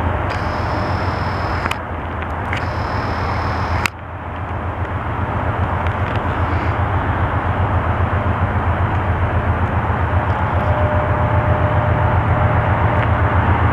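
Canadian Pacific freight diesel locomotives running: a deep rumble with an even engine pulse. It breaks off about four seconds in, then comes back and grows steadily louder.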